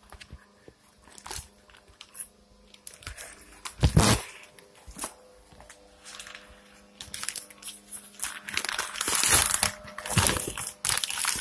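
Close rustling and crinkling handling noise with scattered clicks, a loud thump about four seconds in, and heavier rustling in the last few seconds.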